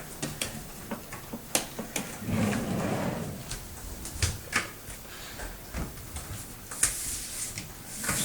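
Scattered light knocks, clicks and rustling as a laminate cabinet panel is handled and pressed against a kitchen cupboard door, with a few short scraping swishes near the end.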